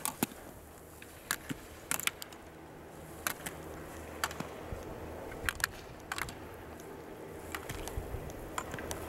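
Slalom skier's skis scraping over the snow, with sharp clacks of slalom gate poles being struck and knocked aside, about once a second.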